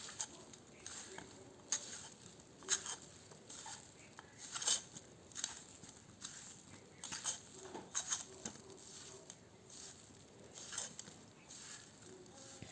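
Soaked soya chunks being mixed with cornflour and spices in a bowl: faint, irregular soft clicks and light taps as the coated pieces are turned over.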